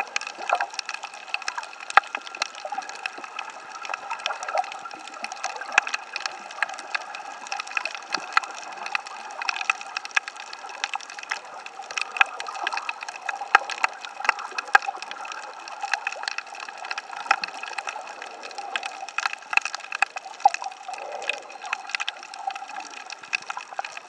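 Underwater sound on a coral reef, picked up by a camera below the surface: a steady watery hiss scattered with many short, irregular clicks and crackles.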